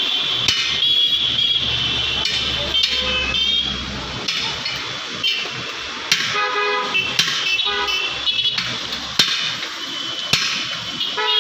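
Vehicle horns honking several times over a steady background of traffic, with a few sharp clicks in between.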